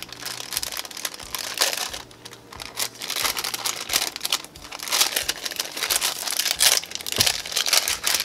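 A thin paper envelope being handled and pried open by hand, its paper rustling and crinkling in irregular bursts that get busier in the second half.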